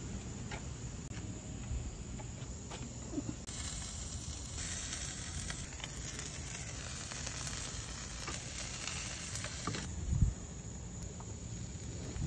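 Skewered sausages sizzling and crackling over hot charcoal, a steady hiss with faint scattered pops. A low thump about ten seconds in.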